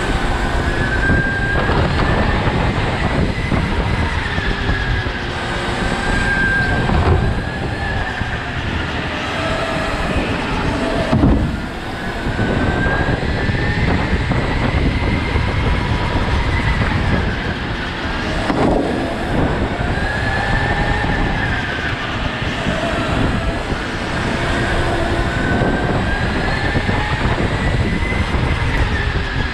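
Go-kart motor heard from onboard, its whine rising and falling in pitch as the kart speeds down the straights and slows into the corners lap after lap, with tyre and chassis noise under it. A sharp thump comes about eleven seconds in.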